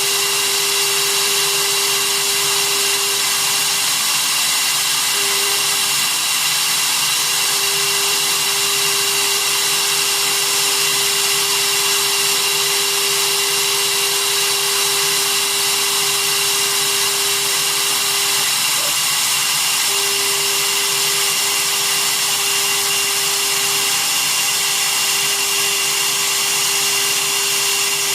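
Small CNC machine's spindle motor running steadily with a high whine while milling a copper-clad circuit board, with a lower hum that breaks off and comes back several times.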